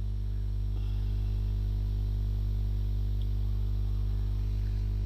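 Steady electrical mains hum, a low drone with a ladder of even overtones, unchanging throughout.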